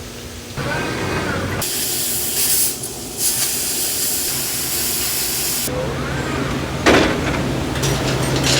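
Plasma cutter firing: a loud, steady hiss of the arc and air jet for about four seconds, with a short break partway, then cutting off. A steady low hum remains after it stops.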